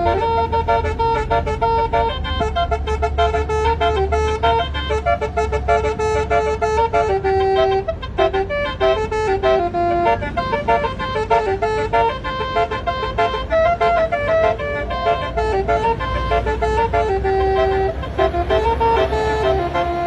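Telolet bus horn, a multi-tone air horn, playing a quick melody of stepping notes with several tones sounding together. A low engine rumble continues underneath.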